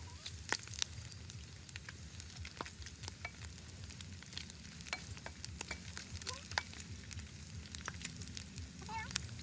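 Chunks of pork frying in hot oil in a pan, sizzling with irregular sharp crackles and pops, stirred now and then with a spatula.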